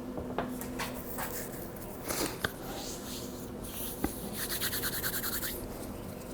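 Light clicks and knocks with rustling and rubbing, as the soft-serve machine's removed parts are handled. About two-thirds of the way in there is a quick rasping run of strokes lasting about a second.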